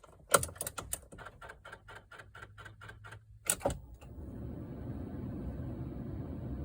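Even, rapid clicking, about five clicks a second for some three seconds, in a Ram ProMaster van that won't start, set between two louder clicks. A steady low whir then sets in and holds.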